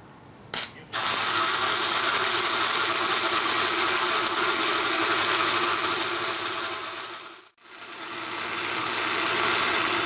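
Electric arc welder crackling steadily as a bead is laid on the mower frame's base, with a short click just before. The arc stops abruptly after about six seconds and strikes again half a second later.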